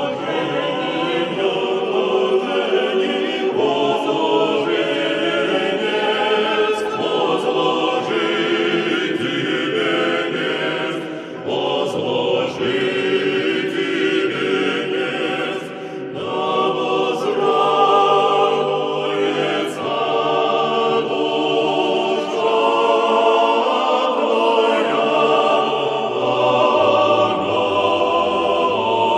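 A choir singing a song, with held notes and short breaks between phrases.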